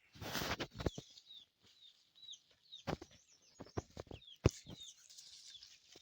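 Birds chirping repeatedly in short, high calls, with a burst of rustling at the start and a few sharp clicks.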